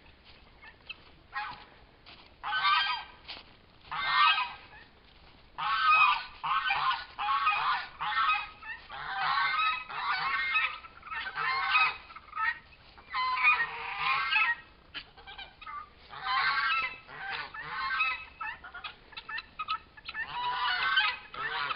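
A flock of farmyard poultry calling: loud calls in repeated bursts, a few at first, then one after another and often overlapping from about five seconds in.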